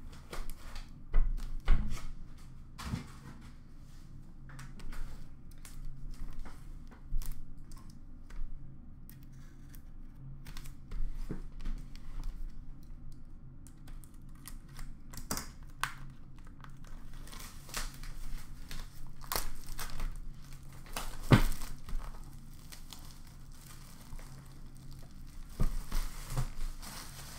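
Plastic shrink wrap being torn and crumpled off a cardboard trading-card box, an irregular crackling with a few knocks as the box is handled on the counter.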